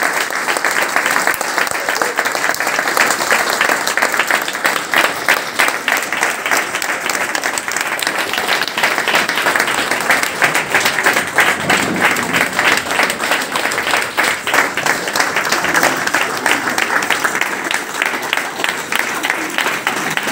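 Audience applauding: a large crowd clapping steadily throughout, with voices mixed in.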